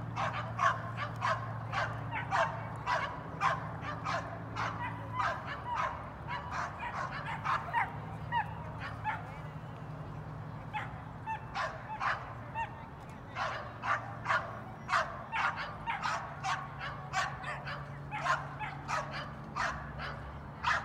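A dog barking over and over in short, sharp barks, about two or three a second, with a brief lull around the middle, over a faint low steady hum.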